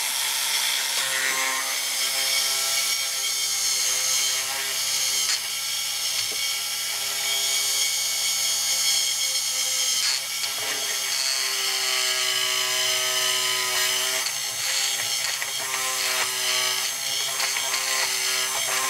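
Small hand-held rotary power tool running steadily, cutting a hole into the model locomotive's chassis where the maker left none; its whine sags and recovers several times as the bit bites.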